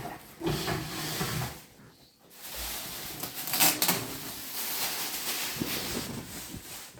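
Rustling and knocking of packaging as a newly unboxed microwave oven is set down and unwrapped, with a brief lull about two seconds in and a louder rustle or scrape about a second and a half later.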